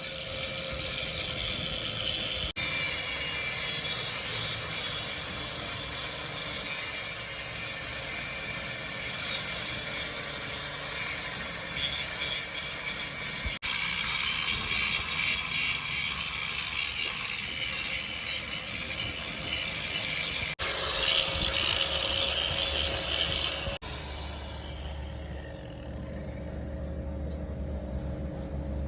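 Steady metalworking noise from a machine tool running, broken off briefly a few times; about 24 seconds in it drops to a quieter low hum.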